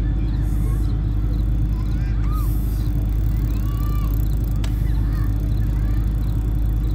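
Steady low rumble with a few faint, short honking calls over it.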